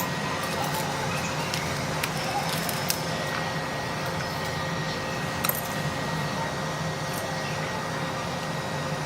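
A handful of light, irregularly spaced clicks and clinks of small repair tools at a phone repair bench, over a steady background hum.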